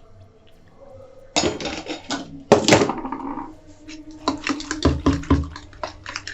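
Utensil scraping and clinking against a bowl of beaten egg and chopped vegetables: two louder scrapes a little over a second apart, then a run of quick, irregular clinks as the mixture is stirred.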